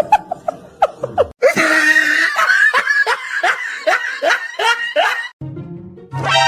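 A person laughing hard in a quick run of breathy bursts for about four seconds, cutting off suddenly. Low music starts near the end.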